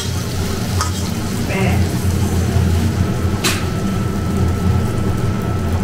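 A steady low mechanical hum with one sharp click about three and a half seconds in, after which a faint thin high tone holds.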